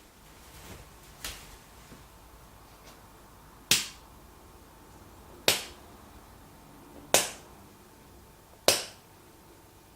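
Rocker switches on the back of a five-bulb softbox light being clicked one after another: four sharp clicks about a second and a half to two seconds apart, with a fainter click before them.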